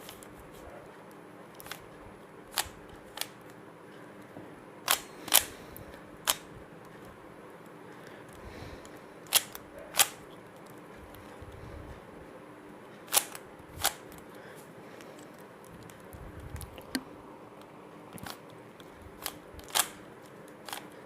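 Plastic 3x3 Rubik's Cube being turned by hand, its layers clacking in sharp clicks that often come in quick pairs, over a faint steady hum.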